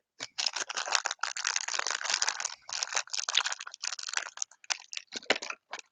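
A blind-bag wrapper being crinkled and torn open by hand, a steady run of crackles and rustles that thins out near the end.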